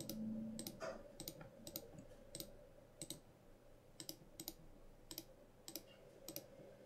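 Computer mouse button clicking a dozen or so times at uneven intervals, faint, as vertices are selected one by one. A faint steady hum sits underneath.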